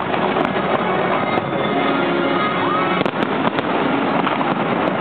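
Aerial fireworks show going off continuously: a dense crackle with sharp bangs, the loudest about three seconds in, and a short rising whistle about two and a half seconds in. Music plays underneath.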